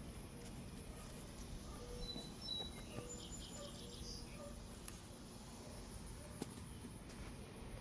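Faint, high bird chirps, a handful of short notes about two to four and a half seconds in, over a low steady outdoor rumble.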